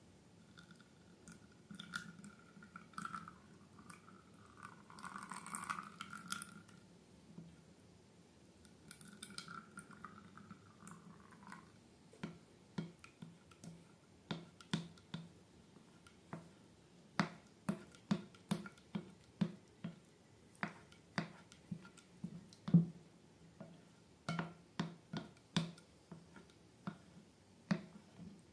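Slime-making sounds. Two stretches of soft wet pouring and squishing come first, then from about twelve seconds in a run of sharp sticky clicks and pops, one to two a second, as the slime is worked.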